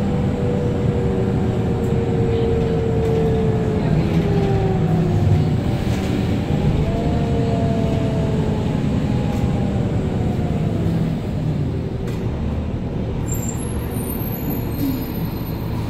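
The 2007 New Flyer D60LFR articulated bus's Cummins ISM diesel engine and Allison B500R six-speed drivetrain running under way, heard from inside the cabin: a steady drone with a whine that slowly falls in pitch, twice.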